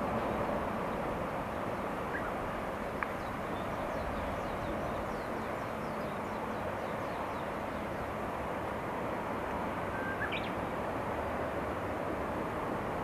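Distant DD51 diesel-hydraulic locomotive hauling a passenger train: a steady rumble of engine and rolling stock. A few short bird chirps come about two, three and ten seconds in.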